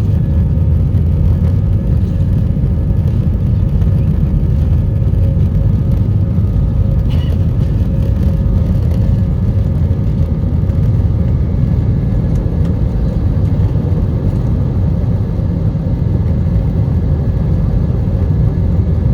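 Steady low roar of engine and airflow noise inside the cabin of an Airbus A320 in flight, with a faint steady hum above it.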